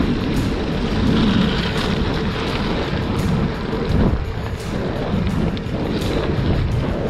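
Heavy wind buffeting on the microphone over the rumble of a gravel bike's tyres rolling on a loose gravel road, with scattered small clicks and rattles.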